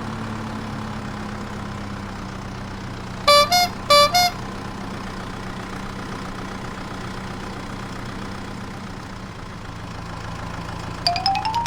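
Cartoon vehicle sound effects: a steady low engine hum, with a horn giving two quick double toots, each going from a lower to a higher note, about three to four seconds in. Near the end a run of short rising chime notes begins.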